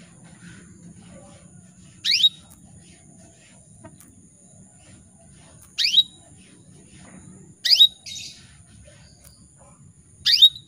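Female canary in breeding condition calling to a male: four short, sharp chirps that sweep quickly upward, spaced a few seconds apart.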